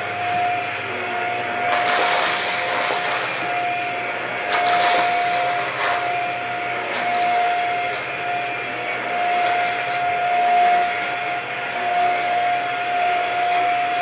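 Stick vacuum cleaner running on a rug, with a steady motor whine over the airflow noise. The head is pushed and pulled back and forth, and the noise swells briefly a few times.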